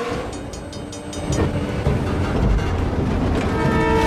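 Film sound of a train at a railroad crossing during a street race: a heavy low rumble of the train, then its horn sounding steadily from about three and a half seconds in.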